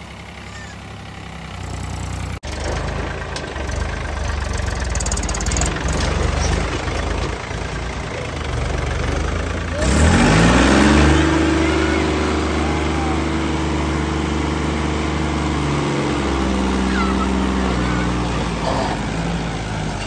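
Mahindra B 275 DI tractor's three-cylinder diesel engine running under load as the tractor works through deep mud. About halfway in it revs up sharply and is held at high revs while the rear wheels churn.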